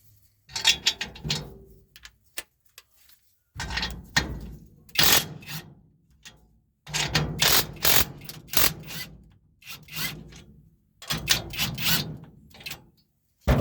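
Hand tools working on the metal of a New Holland 315 baler's feeder bar to take off the hay fork teeth: spells of scraping and clicking a second or two long, four times, with short pauses between.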